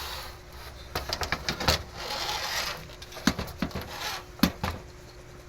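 Handling noise from an amplifier being turned around on a surface. A quick run of clicks and knocks comes about a second in, then a short scrape, then a few separate knocks.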